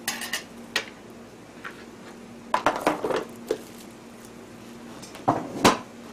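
Scattered clacks and knocks of a cooking utensil against a metal pan, mixed with the handling of a plastic food tub, over a faint steady hum. The sharpest knocks come near the end.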